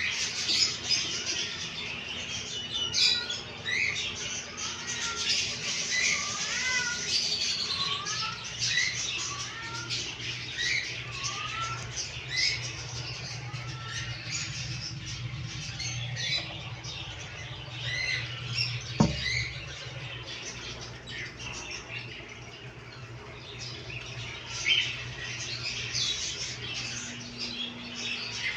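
Many caged birds chirping and squawking over one another in a constant chatter of short rising and falling notes, over a steady low hum. A single sharp click comes about two-thirds of the way through.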